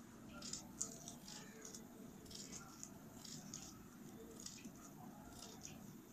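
Scissors snipping thin paper: a faint, irregular run of short snips, about two or three a second, as a fringe is cut into a strip.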